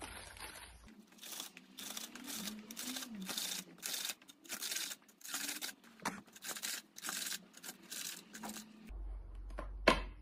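Old rope being pulled and unwound off a cat scratching post, in a series of rough tearing, scraping strokes, with one sharp click near the end.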